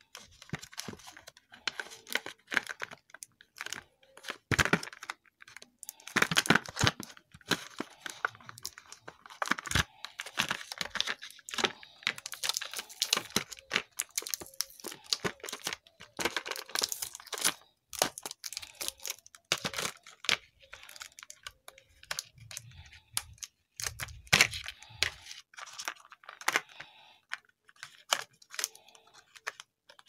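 Clear plastic blister packaging crackling and crinkling in irregular sharp bursts as it is handled and pried open.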